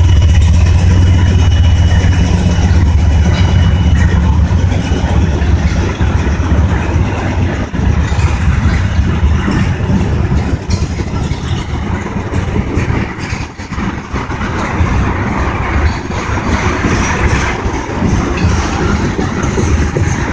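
Freight train passing close by. The diesel locomotives' engines give a heavy low rumble for the first several seconds, which fades as the tank cars roll past with steady wheel-on-rail noise and intermittent clatter.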